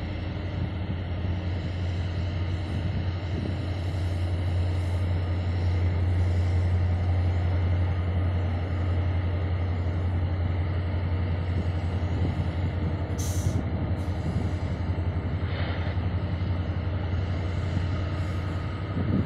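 Diesel locomotives of a freight train running with a steady low drone that grows louder over the first several seconds and then holds. A short high hiss cuts in briefly about thirteen seconds in.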